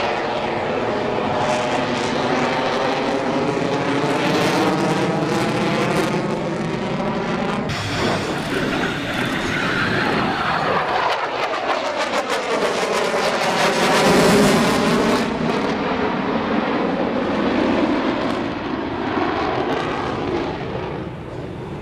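Jet engine roar of an F-22 Raptor's twin Pratt & Whitney F119 afterburning turbofans as the fighter manoeuvres overhead, with a ragged crackle in it. The roar's pitch sweeps as the jet passes, changes abruptly about eight seconds in, and is loudest about two-thirds of the way through.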